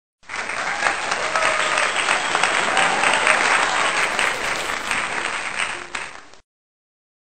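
Applause from a large crowd, a dense patter of many hands clapping with a few voices mixed in, cutting off abruptly about six seconds in.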